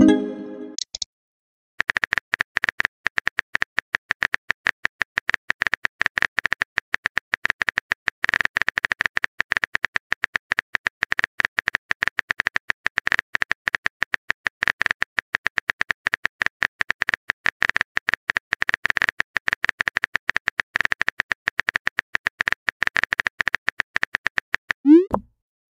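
Texting-app typing sound effect: a long run of rapid keyboard-like clicks while a message is typed, ending in a short rising pop as the message bubble appears.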